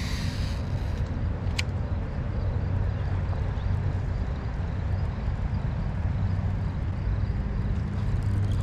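Steady low rumble of distant road traffic, with one sharp click about one and a half seconds in.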